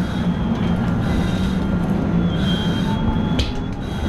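Steady low mechanical rumble of an engine running, with a faint steady high whine over it.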